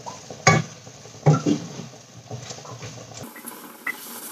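Wooden spatula stirring broccoli and chicken in a wok, with two sharp clacks against the pan in the first second and a half, over a faint sizzle from the hot pan.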